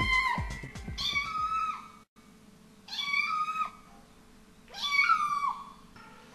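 Three drawn-out, meow-like calls, one about every two seconds, each dropping in pitch at its end. A thudding music beat cuts off just after the start.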